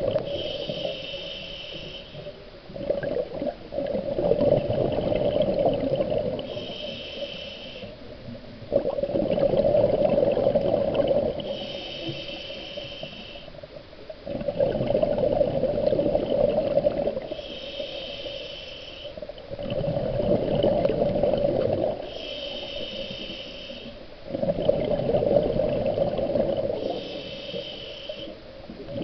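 Scuba diver breathing through a regulator underwater, about six breaths, each roughly five seconds apart. Each breath is a short hiss from the regulator on the inhale, then a longer, louder rush of exhaled bubbles.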